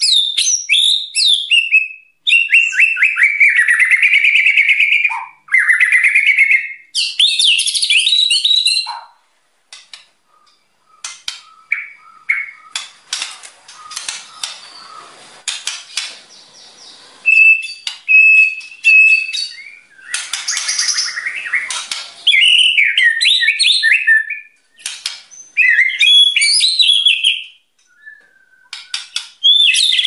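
White-rumped shama in full song: loud, varied whistled phrases of a second or two each, gliding up and down, with short pauses between. A quieter stretch of soft notes and clicks comes in the middle.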